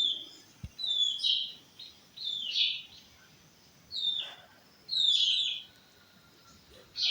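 A bird calling over and over: short, high chirps that slide downward in pitch, about one a second with quiet gaps between.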